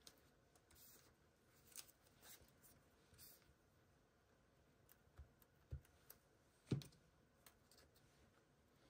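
Near silence with a few faint taps and light rustles of paper cut-outs being handled and repositioned in a journal, and one sharper tap about seven seconds in.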